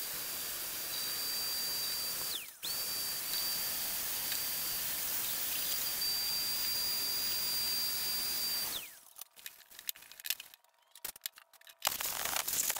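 Die grinder with a wire brush wheel running at a steady high whine with a hiss, stripping paint from a drill press head casting. It spins down about two seconds in, starts again at once, and spins down once more about nine seconds in. After that come a few light clicks and scrapes of a tool on the metal casting.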